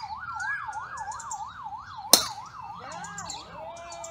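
A distant emergency-vehicle siren yelping, its pitch sweeping rapidly up and down. About two seconds in comes a single sharp crack of a golf club striking a ball off the tee, the loudest sound. After it, the siren's steady sweeps give way to slower, arcing glides.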